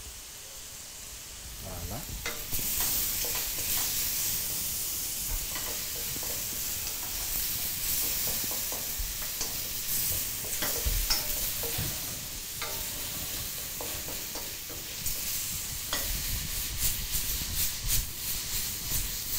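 Shrimp sizzling in hot oil in a stainless-steel wok while being stirred, with the utensil clicking and scraping against the pan. The sizzle rises about two and a half seconds in, and the clicks come thicker near the end.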